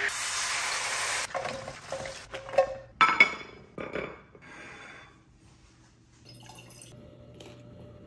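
Immersion blender whirring in a jug of sauce, stopping about a second in. Then clinks and scrapes of a spatula against a wok and ceramic bowl, loudest about two and a half and three seconds in. After that, a faint steady hum with light tableware clinks.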